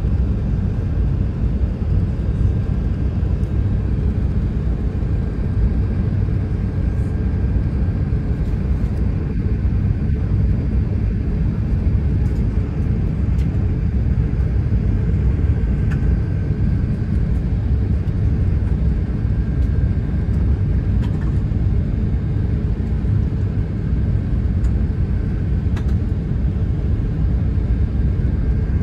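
Steady low rumble inside the cabin of an Airbus A380 descending to land: engine and airflow noise heard through the fuselage, with a faint thin whine above it.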